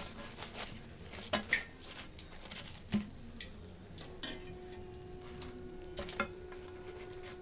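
Oil sizzling and crackling on freshly fried mirchi bajji (battered chilli fritters) just lifted from the frying oil, with scattered clicks and taps of a wire strainer and fingers against a steel plate. A steady hum starts about four seconds in.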